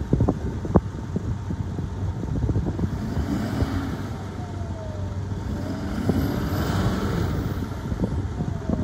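2012 Ford F450's 6.7-litre Power Stroke V8 diesel idling steadily.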